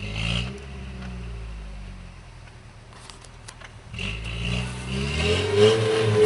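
Toyota 4x4's engine revving: it rises at the start, falls off over the next few seconds, then revs up again about four seconds in and stays high.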